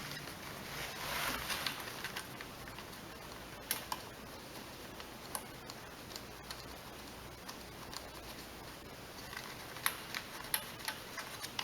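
Faint scattered clicks and light rustling of bolts being finger-threaded into a lawnmower carburetor.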